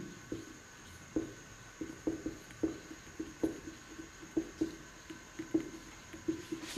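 Marker pen writing on a whiteboard: a run of short, irregular strokes, about two or three a second, as letters are written.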